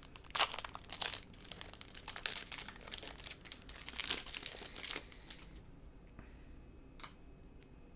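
A 2021 Topps Opening Day baseball card pack's wrapper being torn open, crinkling and tearing in quick crackles for about five seconds. Then it goes quiet apart from a single sharp click about seven seconds in.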